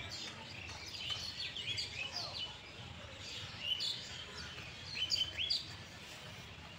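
Birds chirping: many short rising chirps, several birds at once, over a faint steady background noise.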